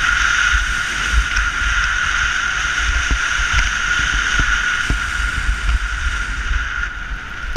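Snowboard sliding down a packed-snow trail: a steady hiss of the base and edges running over the snow, with wind rumbling on the camera microphone.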